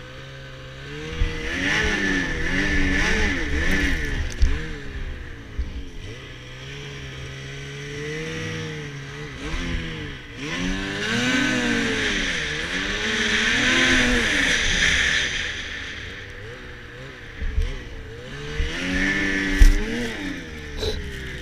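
Ski-Doo MXZ TNT 850 snowmobile's two-stroke twin engine revving up and easing off in three long surges, with a rushing hiss as it runs through deep snow. A few sharp thumps near the end, the loudest about twenty seconds in.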